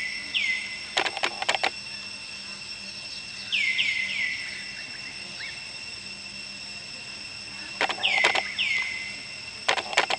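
Outdoor ambience with a steady high insect drone, cicadas or crickets, running throughout. Over it come short high calls that drop sharply in pitch, in twos and threes near the start, about four seconds in and about eight seconds in, and clusters of sharp clicks about a second in, about eight seconds in and near the end.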